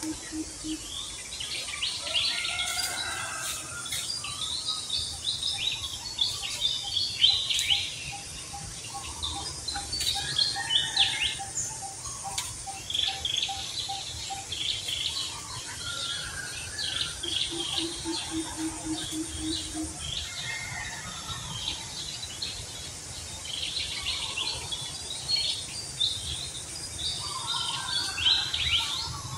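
Many small birds chirping and calling over one another, with a steady high insect hiss beneath. A long, even trill runs through the first half, and a low, rapid pulsing call sounds once past the middle.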